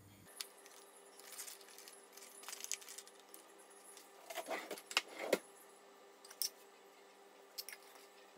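Stiff plastic food tray crinkling and clicking as it is handled and fresh tagliolini is tipped out of it into a pot, with scattered light clicks and rustles and a louder burst of crackling about four to five seconds in.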